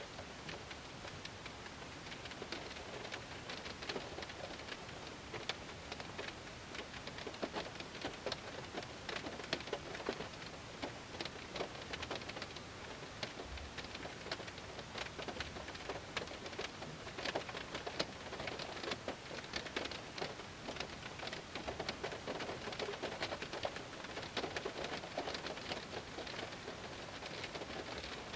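Heavy rain falling on a car, a dense steady patter of many drops striking the glass and body with scattered sharper ticks.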